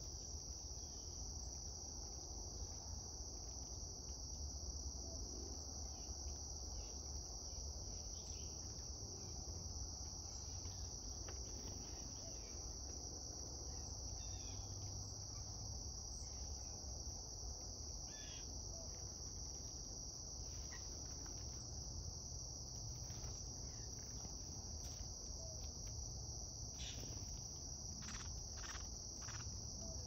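Steady, high-pitched insect chorus, cricket-like, running without a break, over a low rumble. A few short clicks sound near the end.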